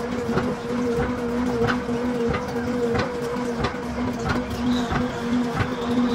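Steady electric machine hum with irregular metallic knocks and clanks as a cast iron truck brake drum is handled and fitted onto a lathe chuck.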